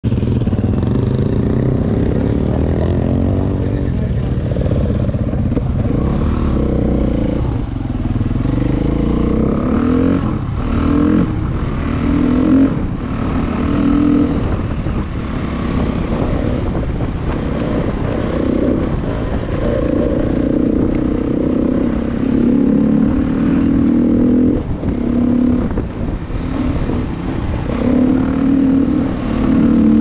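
Husqvarna dirt bike engine heard up close from the rider's helmet, revving up and dropping back again and again through the gears, with the throttle briefly rolled off a few times near the end.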